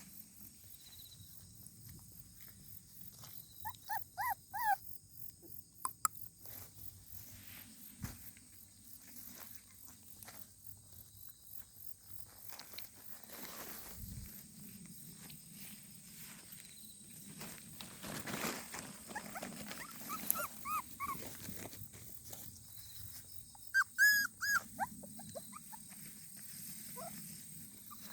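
Puppy whimpering and yelping in short, high, arching cries that come in clusters: a few near the start, more in the middle, and a loud burst about three-quarters through.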